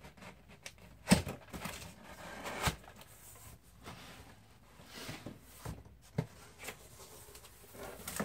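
Cardboard box opened by hand: the lid and flaps lifted and folded back, with scraping, rustling and several light knocks, the sharpest about a second in.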